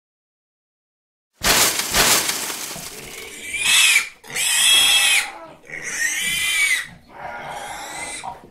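A sudden rush of noise about a second and a half in, then a pig squealing four times, each squeal rising and falling in pitch, the last one weaker.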